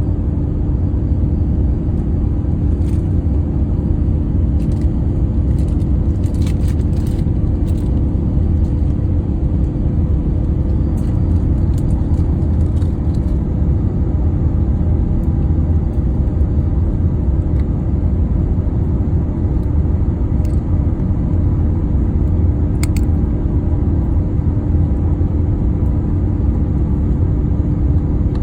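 Cabin noise inside an Airbus A350-900 airliner in flight: a steady, even low rumble of engines and airflow with a constant hum. A few faint clicks come and go.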